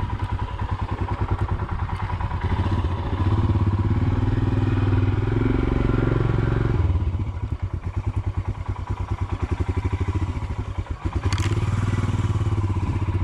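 Royal Enfield Himalayan's 411 cc single-cylinder engine running at low revs, each exhaust beat distinct. It grows louder about three seconds in, drops back about halfway through, and picks up again near the end.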